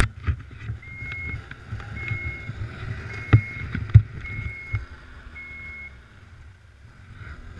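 Snowmobile engine idling low under a reverse-warning beeper that beeps five times, about once a second, then stops. Two sharp knocks come about three and four seconds in.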